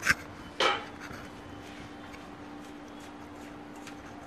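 A steel spoon knocking against a steel mixing bowl near the start, followed by a brief scrape, then a faint steady hum.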